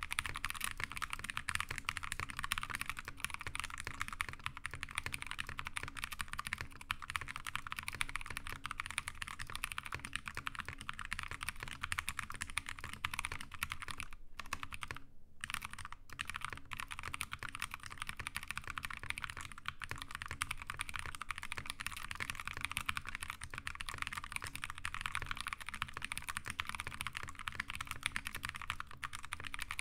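Fast, continuous typing on a Glorious GMMK TKL tenkeyless mechanical keyboard with Drop Halo True tactile switches: a dense stream of keystroke clacks, broken by two brief pauses about halfway through.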